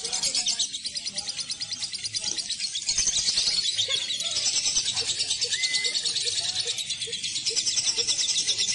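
Lovebirds chattering in a fast, unbroken run of shrill, high notes.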